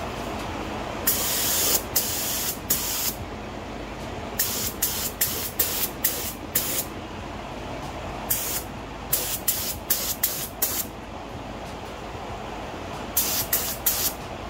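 Compressed-air paint spray gun hissing in many short bursts as the trigger is pulled and released over and over, laying down a coat of epoxy primer. The bursts come in groups of quick passes, with a steady low background noise underneath.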